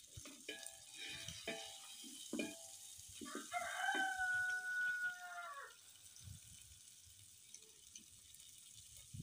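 Rooster crowing once, one long call of about two and a half seconds, after a few seconds of short clucking.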